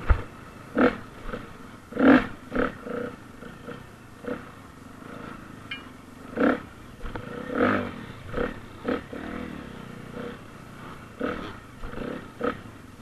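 Off-road motorcycle engine revving in short, repeated throttle bursts over a steady lower running note while riding over obstacles, about a dozen surges, the strongest about two seconds in and again around six and a half and seven and a half seconds.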